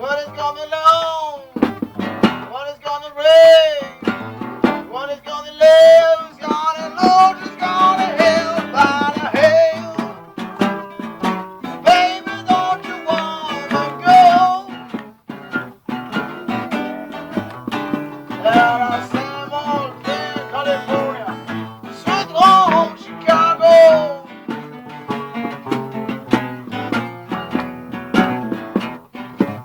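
Blues band jamming: guitar accompaniment under a lead line of bent, wavering notes.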